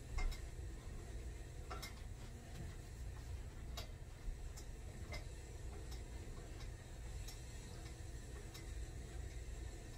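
Light clicks from a Bowflex Blaze home gym's cables and pulleys being worked through repeated pulls, a click every second or so, some in quick pairs, over a low steady hum.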